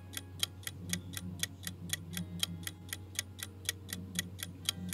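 Ticking-clock timer sound effect counting down thinking time, with quick, even ticks at about four to five a second over a faint steady low hum.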